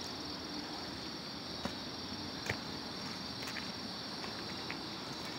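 Steady, high-pitched chorus of insects singing in the woods, with a few short clicks mixed in.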